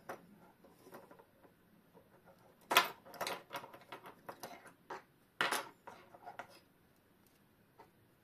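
Small metal clock parts and tools clicking and clinking against each other and the bench as a clock movement is taken apart, with two louder clatters about three and five and a half seconds in.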